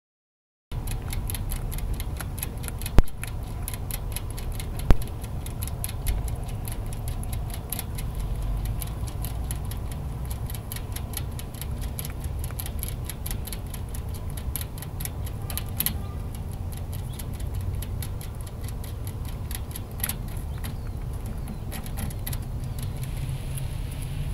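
Baby lionhead rabbits eating pellets and drinking from a bottle's metal sipper tube: rapid small clicks and ticks over a steady low rumble. Two louder sharp clicks come about three and five seconds in.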